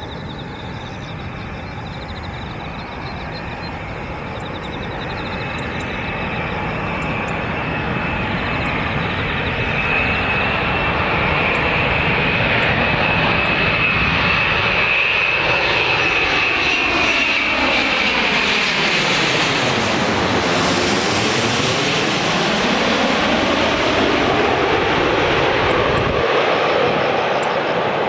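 Jet engines of a Boeing 787-9 on landing approach, growing louder as the airliner nears, with a high fan whine. The engine sound peaks and sweeps in pitch as the plane passes close by about 20 s in.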